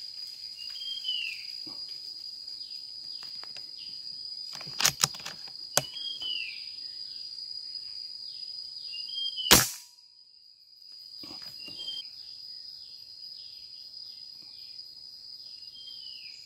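One sharp, loud shot from a scoped hunting gun about nine and a half seconds in, with a couple of fainter clicks a few seconds before it. A steady high-pitched drone and short falling chirps repeating every second or two run behind it, and the sound drops out for about a second right after the shot.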